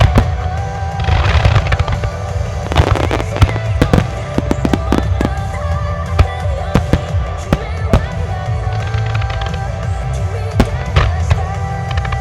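Fireworks in a music starmine: shells bursting one after another with sharp bangs and crackling, heavy booming underneath, over music played for the display.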